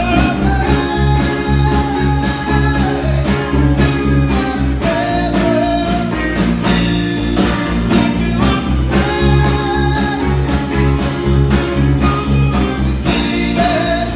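Live blues trio of electric guitar, bass guitar and drums playing with a steady beat.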